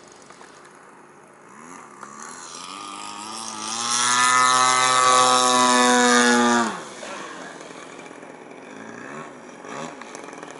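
Engine of a radio-controlled aerobatic model airplane making a fast pass: the engine note grows louder over a few seconds, holds loud and steady, then drops in pitch and fades quickly about seven seconds in as the plane goes by.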